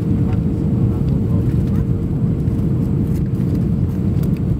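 Steady cabin noise of an Airbus A320 in flight on approach: a dense low rumble of engines and airflow with a constant hum above it.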